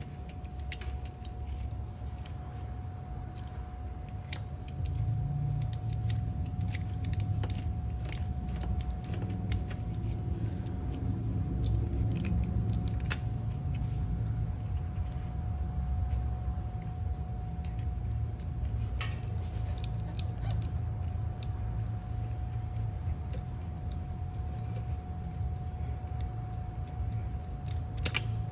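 Scattered clicks and clinks of hand tools and metal parts being handled, over a steady low hum and a faint steady whine.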